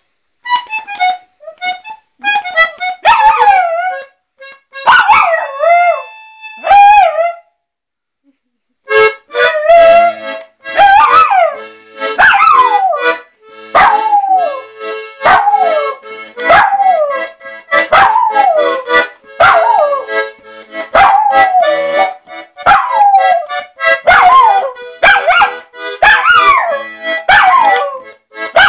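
A puppy howling along to music from a reed instrument, its howls falling in pitch and coming about once a second over steady held notes, after a short silent break about eight seconds in.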